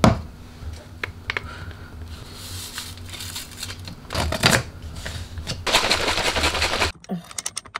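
A plastic shaker cup's lid clicks off, a drink-powder sachet is torn open and poured in, and the closed cup is shaken hard for about a second near the end, over a low steady hum.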